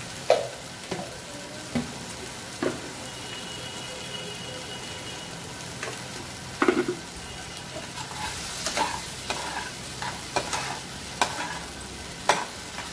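Potatoes and spice paste sizzling in a non-stick frying pan, cooked in very little oil. A few sharp utensil knocks come in the first seconds and one near the middle, then the metal spatula scrapes and knocks against the pan in a quick run of stirring strokes over the last few seconds.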